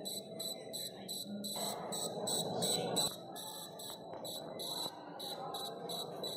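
Small electronic buzzer on a smart walking stick beeping rapidly at a high pitch, about four short beeps a second. A louder rustling noise comes in for about a second and a half around the middle.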